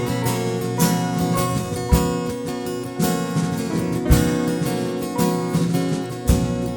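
Acoustic guitar strumming chords over held sustained tones, with a strong accented stroke about once a second.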